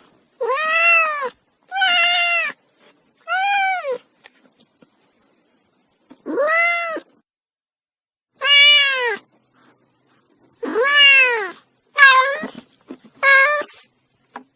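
Kitten meowing: eight high meows, each rising then falling in pitch, spaced out by pauses of up to two seconds. The last few come closer together.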